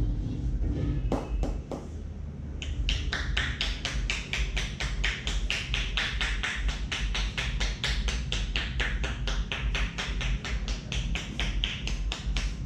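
A barber's hands tapping and slapping rhythmically on a head during an Indian head massage. A few separate taps come about a second in, then a fast, even run of sharp strikes at about four to five a second.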